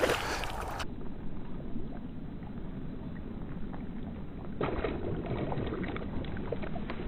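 Water splashing as a small pike thrashes at the surface. After a sudden cut, the sound turns duller and muffled, and about four and a half seconds in a pike splashes again at a duck-shaped topwater lure (Savage Gear 3D Suicide Duck) being drawn across the water.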